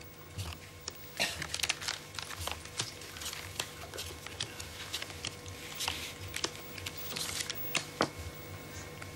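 Playing cards being dealt onto a felt-covered table: a run of quick, irregular flicks and soft slaps, over a faint steady hum.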